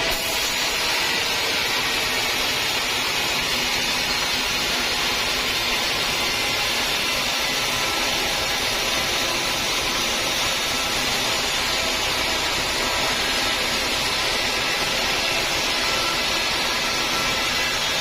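Sawmill saw cutting through a teak log: a loud, steady run of machine noise with no pauses.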